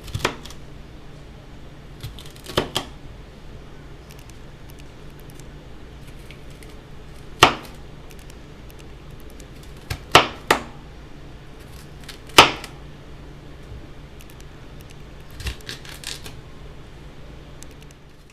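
Knife chopping bell pepper on a cutting board: single sharp knocks every few seconds, two in quick succession about ten seconds in and a small cluster near the end, over a steady low hum.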